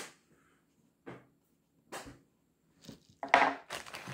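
A few light clicks and knocks as pocketknives are handled and set down, about a second apart. Then, a little over three seconds in, a clear plastic bag crinkles loudly as a hand rummages in it.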